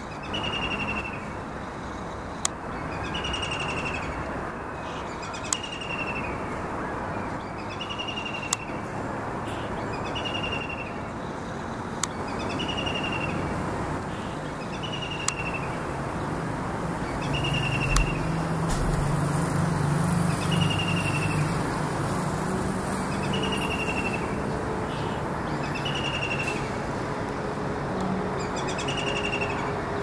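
White-throated kingfisher calling from a perch: a short, slightly falling call repeated about every two to two and a half seconds, with a low rumble passing through the background near the middle.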